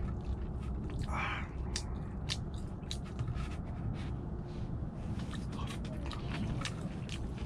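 A man eating: chewing, with scattered small clicks of wooden chopsticks against a plastic instant-rice tray, and a brief rustle about a second in.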